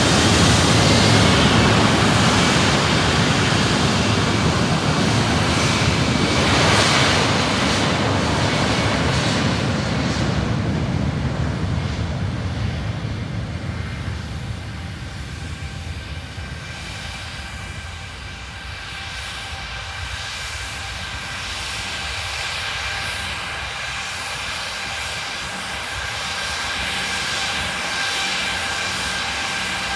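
Embraer E190 airliner's twin GE CF34 turbofans at takeoff power as the jet climbs away. A falling whine is heard in the first couple of seconds, the noise swells briefly about 6 to 7 s in, then fades steadily as the aircraft recedes.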